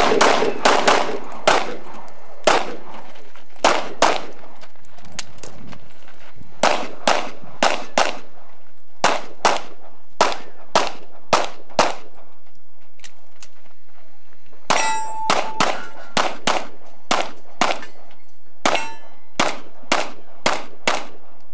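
A pistol fired in fast strings of shots, several a second, with a pause of about three seconds midway. Struck steel targets ring after some of the hits.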